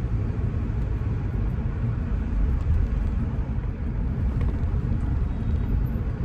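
Steady low rumble of a car driving, road and engine noise as heard from inside or close to the moving vehicle.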